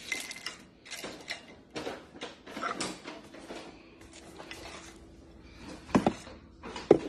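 Crackly rustling of tortilla chips being handled onto a glass plate. About six seconds in come two sharp clacks as the plate is knocked up against a refrigerator's water dispenser.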